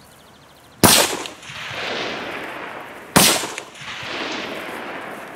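Two rifle shots from a shooting range, about two and a half seconds apart, each followed by a long echo rolling off the surrounding hillsides.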